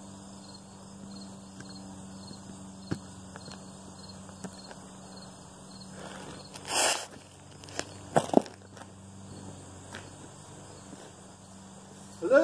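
Outdoor summer ambience: insects chirping in a steady pulsed rhythm over a low steady hum. About seven and eight seconds in come a few short rustling noises and footsteps as a person walks up across grass. The rustle about seven seconds in is the loudest sound.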